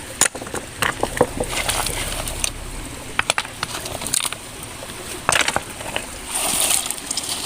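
Scattered small knocks, clicks and crackles of someone poking among stones and mud while searching a crab hole, with a short rush of noise about six seconds in.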